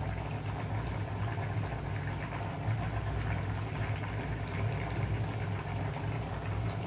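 Steady low hum with faint bubbling from a lentil-and-brinjal curry simmering in a clay pot on a gas burner, and light scrapes and taps of a spoon as masala powder is tipped in.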